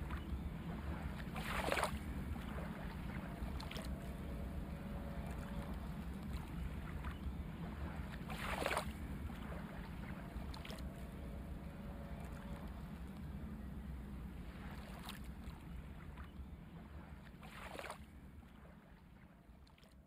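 Faint, steady low rumble of background noise. Four or five short, soft brushing swishes of a hand and pencil rubbing on sketch paper are heard through it, and everything fades out near the end.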